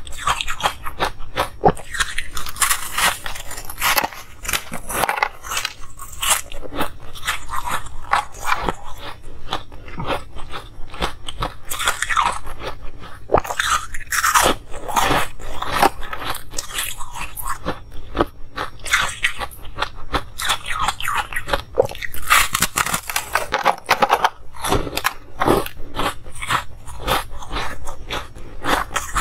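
Close-miked crunching and chewing of frozen, waffle-moulded coloured ice: dense, crackly bites and chews one after another with no pause.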